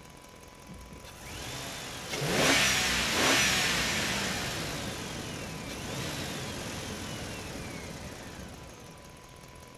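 A vehicle-like engine sound revving, rising and falling in pitch. It swells up about a second in, is loudest two to three seconds in, then fades away over the next several seconds.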